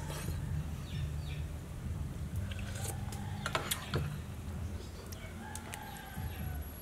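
Chickens clucking in the background, with a few sharp clinks of a metal spoon against the porridge pot about three to four seconds in, over a low steady hum.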